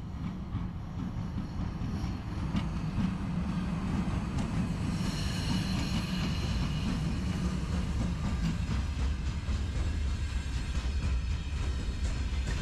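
A rail vehicle passing with a steady low rumble, and a brief high squeal about five seconds in.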